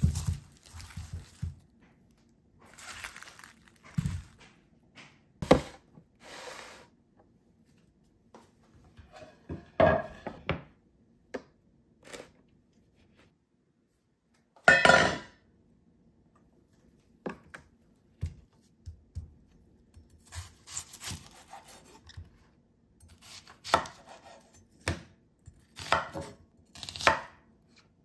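Onion prep at a kitchen counter: scattered knocks and rustles of onions being handled, then a knife cutting peeled white onions on a wooden cutting board. The strokes come irregularly, with pauses between, and bunch closer together in the last several seconds.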